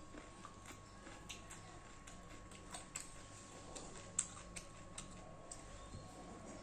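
Faint eating sounds: irregular wet clicks of chewing and lip-smacking as chicken and rice are eaten by hand, with one sharper click about four seconds in.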